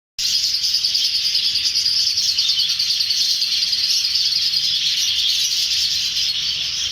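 A flock of budgerigars chattering all together: a dense, unbroken high twittering.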